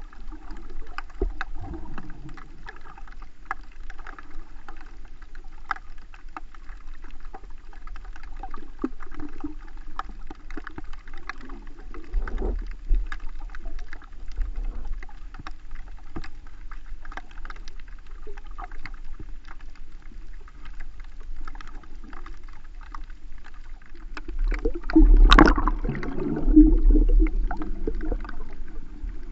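Underwater sound picked up by a GoPro in its waterproof housing while snorkeling over a reef: a muffled water rumble with steady, scattered crackling clicks, and a louder rush of water near the end.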